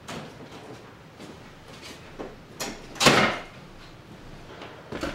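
A few light knocks and clicks, with a brief louder scrape or swish about three seconds in.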